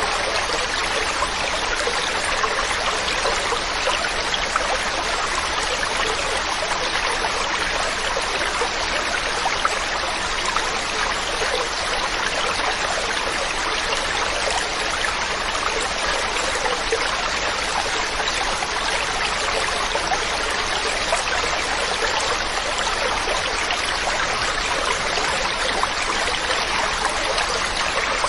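Mountain stream running steadily over rocks, an even rushing splash with small trickles and gurgles in it.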